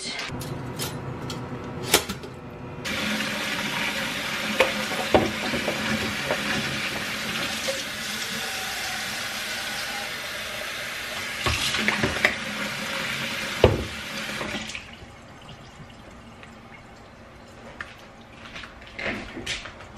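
Kitchen faucet running into a plastic water-filter pitcher for about twelve seconds, then turned off. There are plastic clicks and knocks from handling the pitcher and its lid before the water starts and while it fills.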